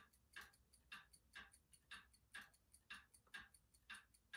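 Light clicks of a laptop keyboard key tapped over and over, about twice a second, as a key is pressed repeatedly during start-up.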